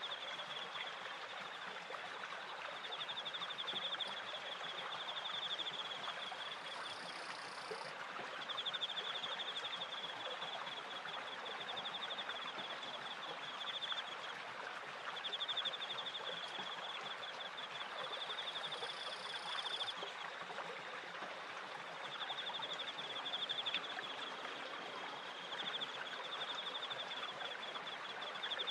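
Steady rush and splash of water from a turning wooden water wheel and its stream, with crickets chirping in long trills of several seconds broken by short pauses. A brief higher insect call cuts in twice.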